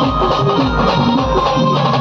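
Band music playing loudly, with a held melody line over a steady drum beat.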